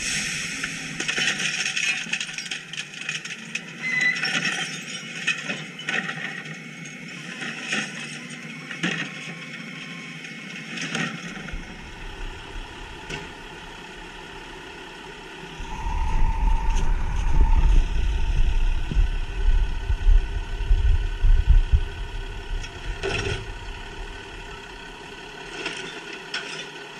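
Garbage trucks at work. For about the first ten seconds a McNeilus rear-loader's packer clanks and rattles as it compacts the load. From about halfway, a Waste Management automated side-loader's engine revs up deeply while its arm lifts and empties a recycling cart, and there is a sharp clatter of the contents falling a little later.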